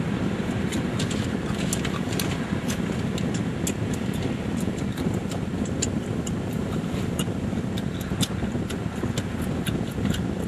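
A car driving along, with a steady low rumble of road and engine noise and many light ticks scattered through it.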